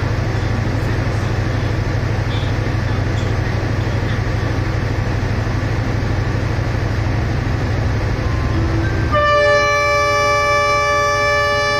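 Steady low diesel rumble from the standing passenger train, then about nine seconds in the locomotive's air horn sounds one long, loud chord-like blast lasting about three seconds.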